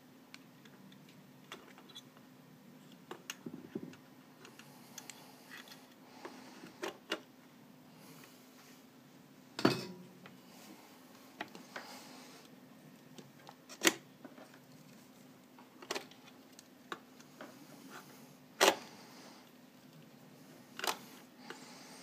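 Scattered clicks and knocks of a circuit board, jack and tools being handled against a steel amplifier chassis, with a handful of sharper knocks spread through.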